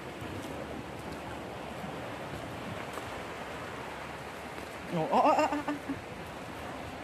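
Steady rushing outdoor background noise, with a short burst of a voice about five seconds in.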